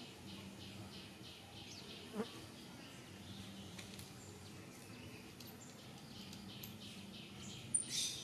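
Faint insect buzzing with a low hum that comes and goes, a short falling squeak about two seconds in, and a brief louder noise near the end.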